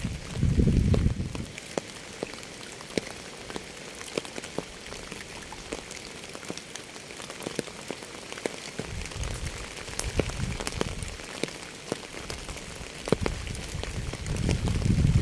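Steady rain with many individual drops ticking close by. A low rumble swells near the start, again about nine seconds in, and near the end.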